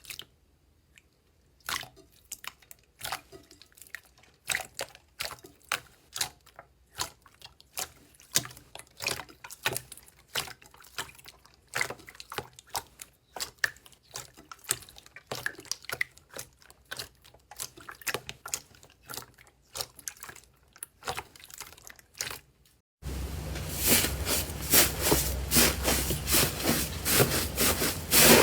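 Slime being squeezed and poked by hand, giving irregular wet, sticky pops and clicks. Near the end it switches abruptly to a louder, denser crackling.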